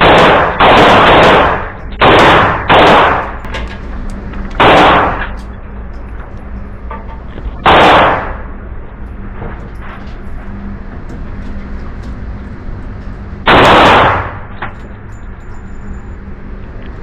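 A Girsan MC1911S .45 ACP pistol firing six loud single shots at uneven intervals: three close together in the first three seconds, then one about every three to six seconds. Between them come a few much fainter pops.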